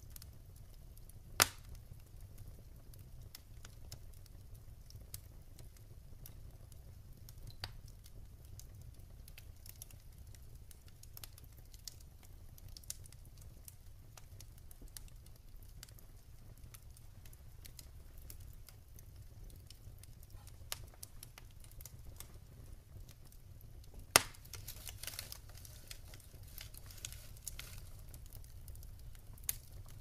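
Wood fire burning in a fireplace: scattered soft crackles and ticks, with two sharp pops, one about a second and a half in and a louder one about 24 seconds in, which sets off a few seconds of busier crackling.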